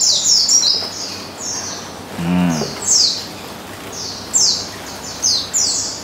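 Caged pleci (white-eyes) calling: clusters of high, thin chirps, each sliding down in pitch, repeating throughout.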